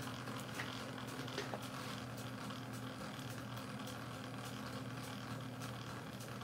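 Small antique horizontal steam engine with a flyball governor and rotary valve, running steadily: a faint regular ticking over a steady low hum.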